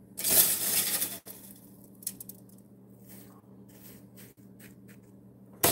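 A hand scooping dry toasted coconut flakes in an air fryer basket: a rustling scrape for about a second, then faint scattered rustles and ticks as the flakes are sprinkled.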